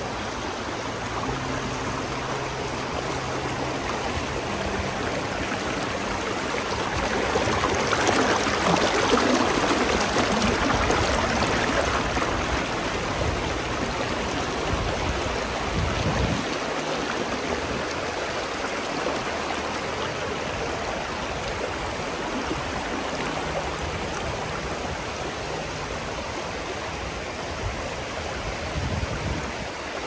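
Forest stream flowing over rocks: a steady babbling rush of water that grows louder for a few seconds about a quarter of the way in, then settles.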